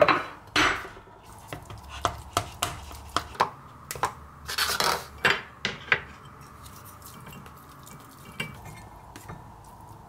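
A spoon and a tuna can clinking and scraping against a glass dish as canned tuna is scooped in: a dense run of sharp clinks and scrapes over the first six seconds, then a few light taps.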